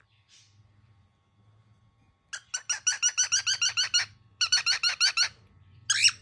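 Young cockatiel giving rapid runs of short, shrill calls, about seven a second, in two bursts and then one short call near the end: an angry chick's scolding.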